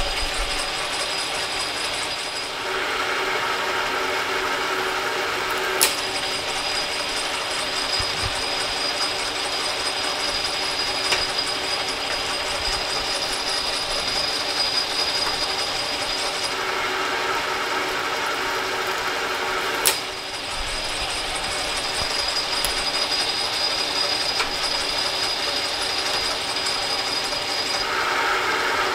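Metal lathe running under power, its gear train and feed drive whirring steadily while a threading tool cuts passes on a steel part. A sharp click sounds twice, about fourteen seconds apart.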